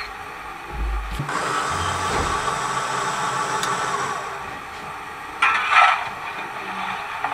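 An H0 model steam locomotive's sound effects: a couple of low thumps, then a steady hiss for about three seconds, and a short rasping burst near the end.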